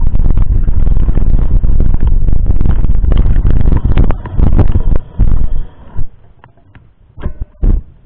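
Mountain bike riding fast over a rough dirt forest trail, heard through an action camera that shakes with the bumps: a loud, constant rumble with dense rattling and knocking. About six seconds in it drops away to a few scattered knocks.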